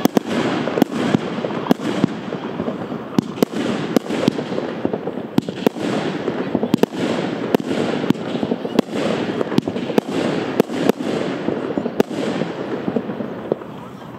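Heron PSP 1-21 fireworks battery of 20 30 mm shots firing: sharp reports about one to two a second over continuous hiss and crackle from the glitter effects, thinning out near the end as the battery finishes.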